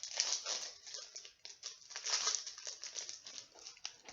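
A trading card pack's wrapper being torn open and crinkled by hand: a continuous crackling rustle of thin packaging that stops near the end.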